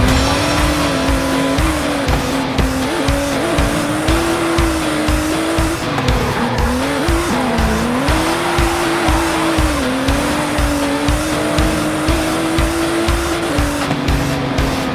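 A motor revving, its pitch rising and falling again and again, over background music with a steady beat.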